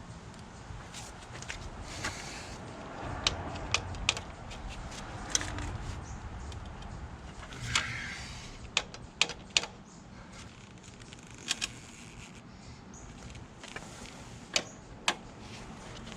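Irregular sharp metallic clicks and clinks, a dozen or so, from a hand tool working the rear hub of a Ducati 1098S single-sided swingarm during chain adjustment.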